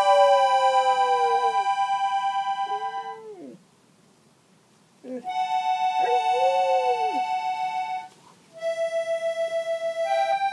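Accordion playing held chords that waver, while a dog howls along in several long, sliding howls. The playing and howling stop for about a second and a half midway. Near the end the accordion plays on alone.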